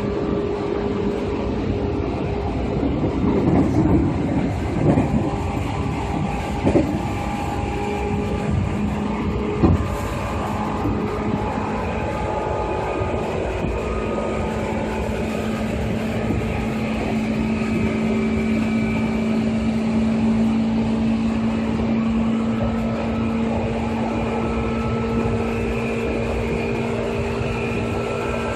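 Seibu 2000-series electric train running: a steady hum from its DC traction motors and gears over wheel-on-rail rumble, with a few knocks in the first ten seconds.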